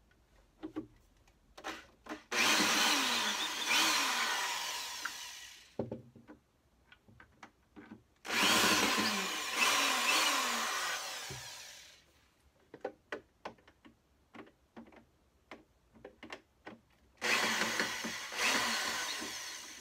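Cordless drill-driver unscrewing screws from the wooden front baffle of a speaker cabinet. It runs in three long spells of about three to four seconds each, its pitch falling as each spell ends, with small clicks and knocks of handling in between.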